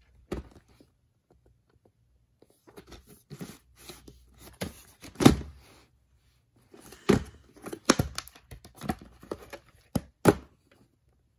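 Plastic clamshell VHS case being handled and turned over by hand: an irregular run of clicks, rustles and knocks, the loudest knock about five seconds in.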